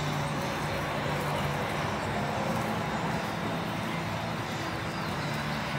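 Steady low mechanical hum under an even wash of outdoor background noise.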